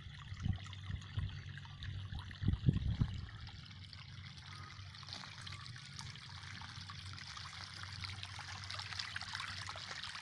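Rainwater runoff trickling out of a small drainage pipe into a muddy puddle, the trickle growing louder near the end. A few dull thumps come in the first three seconds.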